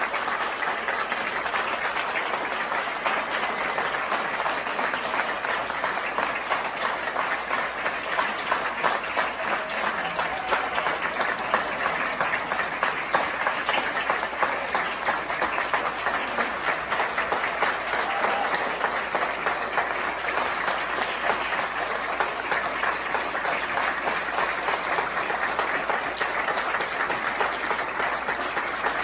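An audience applauding: many hands clapping steadily in a dense patter without a break.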